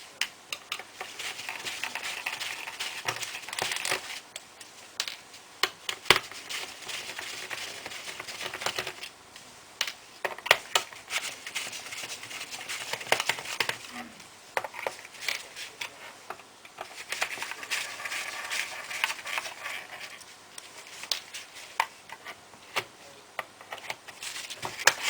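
Hand disassembly of a laptop: stretches of a screwdriver scraping as it turns out screws, with many scattered clicks and taps of small screws and plastic case parts being handled.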